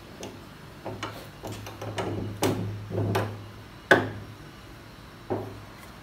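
Wooden boards being fitted and clamped into a metal dovetail jig: a string of sharp knocks and rubbing of wood against the jig's metal and clamp bar, the loudest knock near the fourth second.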